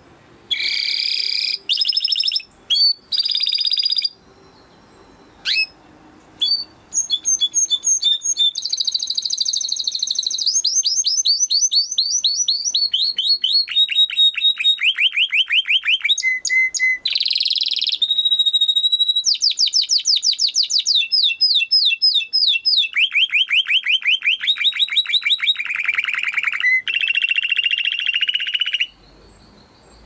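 Domestic canary singing: a few short chirps with pauses, then a long unbroken song of rapid trills, each a fast run of repeated notes, many sliding down in pitch. It breaks off abruptly near the end.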